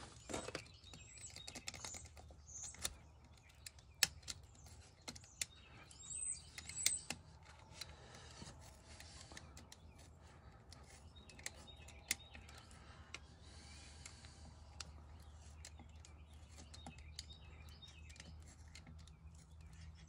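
Utility knife trimming the ends of rubber plug strings on a punctured ag tire: faint, scattered clicks and scrapes of the blade on the plug and tread, thickest in the first eight seconds.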